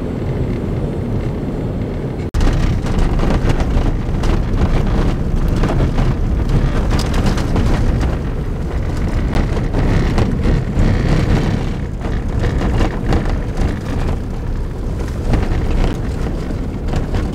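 Pickup truck on the move, heard from inside the cab: engine, tyre and wind noise. It breaks off sharply about two seconds in and comes back louder and rougher, with many small knocks and rattles, as on a dirt road.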